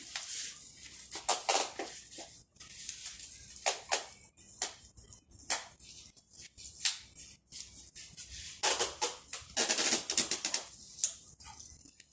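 Short, irregular scratchy rasps and taps from hands working packing tape over the top of a large cardboard box, with a denser run of them about nine seconds in.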